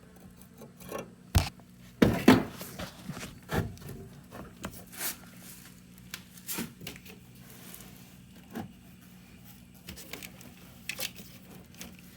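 Handling noise: scattered light knocks, taps and rubbing, the two sharpest knocks about a second and two seconds in, over a faint steady low hum.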